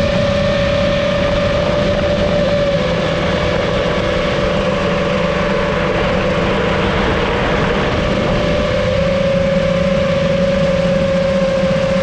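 FPV drone's motors and propellers running in flight, a steady whine that dips slightly in pitch about three seconds in and strengthens again near the end, over rushing propeller and air noise.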